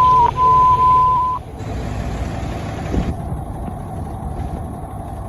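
A steady, high-pitched dispatch alert tone holds, dips briefly, then cuts off about a second and a half in, leaving a low truck-engine rumble.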